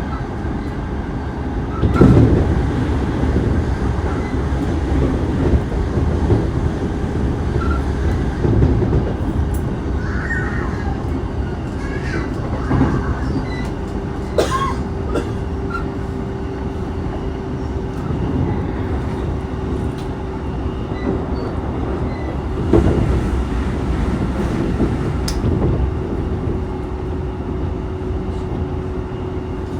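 Running sound heard inside the cabin of a JR East E233-3000 series electric train at speed: a steady rumble of wheels on rail with occasional short thumps from the track, and a steady hum that comes in about halfway through.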